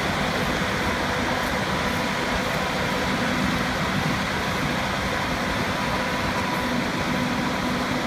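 SF2104G large farm tractor's diesel engine running steadily under load, pulling a ditching implement through the soil; a constant drone with an even hum.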